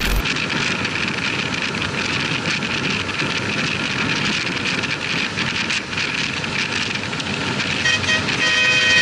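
Steady road and wind noise from a moving vehicle. About eight seconds in, a vehicle horn starts sounding and holds.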